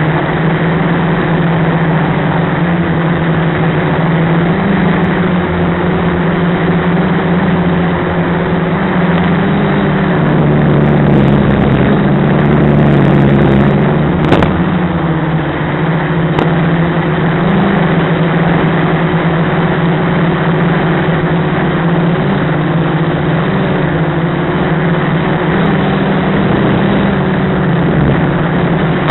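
Quadcopter's brushless motors and propellers droning steadily, the pitch wavering slightly as the throttle changes, with a single sharp click about 14 seconds in.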